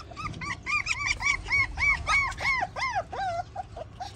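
Puppy yelping in a rapid series of high calls, about four a second. About three seconds in they turn shorter and lower.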